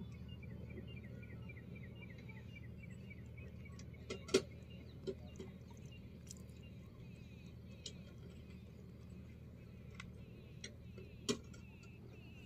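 Quiet background with a steady low hum, a run of quick, evenly spaced high chirps over the first few seconds, and scattered sharp clicks or taps, the loudest about four seconds in and another near the end.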